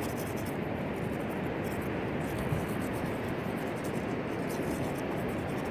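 Toothbrush scrubbing teeth with seawater, faint rapid strokes heard in the first second and again near the end, over a steady rushing hiss of wind and surf.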